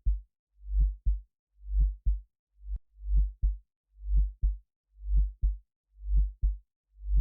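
Synthesized heartbeat: low lub-dub double thumps about once a second, each a swelling thump followed by a shorter, sharper one. Around the third second one beat comes late, with a faint click in the gap.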